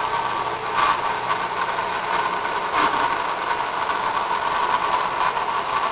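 Electric grinder running steadily with a high whine on the return pass along a spiral planer head knife, the stone lifting slightly off the knife.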